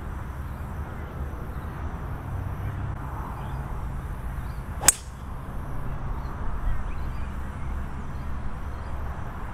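A single sharp crack of a golf club striking the ball on a tee shot, about halfway through, over a steady low rumble.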